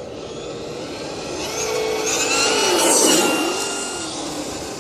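Radio-controlled monster truck running at speed, its drivetrain whining with several tones that build to a peak about three seconds in, dip briefly in pitch, and then fade.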